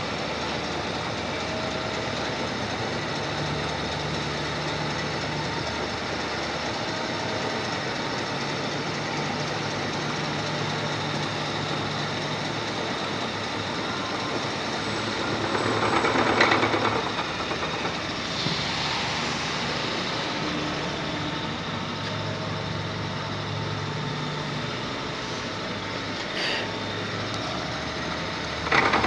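Milling machine running with its end mill cutting a metal block held in a vise: a steady machining noise with a low hum that comes and goes, and a louder spell about halfway through.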